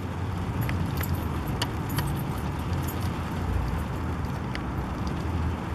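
Steady city traffic rumble, with scattered faint ticks and clicks over it.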